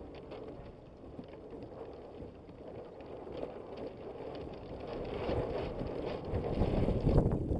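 Water rushing and splashing along the hull of a Hobie Adventure Island sailing kayak under sail, with wind buffeting the microphone; it grows louder over the last couple of seconds.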